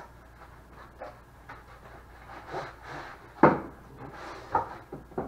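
A cardboard box and its packing being handled and opened: scattered rustling and scraping, with a few sharp knocks, the loudest about three and a half seconds in and two more near the end.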